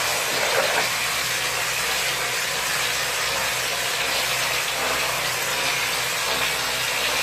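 Machine plastering: a compressed-air spray gun blasting plaster onto a brick wall, making a steady loud hiss, with a steady low machine hum underneath.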